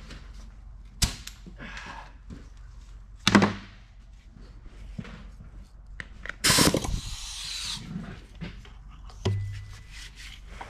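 Work noises at a steel bench as a pneumatic air hammer is hooked up and brought to a transmission countershaft: scattered knocks and clanks, then about six and a half seconds in a loud, short hiss and rattle from the air hammer and its air hose, which fades over about a second. A dull thud follows near the end.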